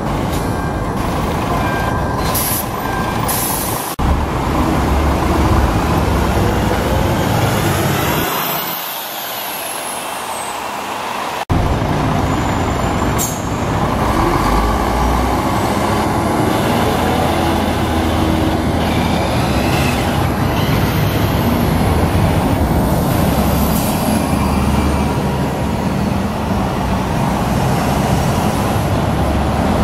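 Diesel city buses driving past, engines running as they pull away, over street traffic noise. The sound changes abruptly twice, about 4 and 11 seconds in.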